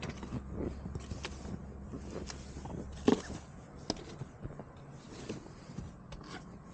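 Snow brush scraping and pushing packed snow off a car's window and rear hatch: repeated short scrapes and crunches of snow, with a sharp knock about three seconds in.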